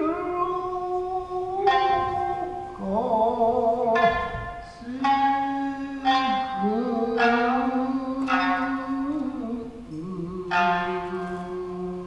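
Tokiwazu-bushi music: a shamisen's plucked notes, each ringing and fading, under a chanter's long held sung notes that waver in pitch.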